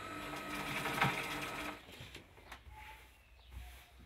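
Industrial sewing machine running steadily as it stitches shirt fabric, stopping a little under two seconds in; after that only a few faint small sounds.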